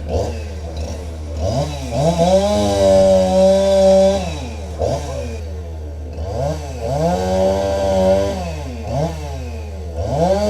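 Chainsaw engine revving up to high speed and holding there, then dropping back to a lower, wavering speed; this happens about two seconds in, again about seven seconds in, and once more near the end. A steady low drone runs underneath.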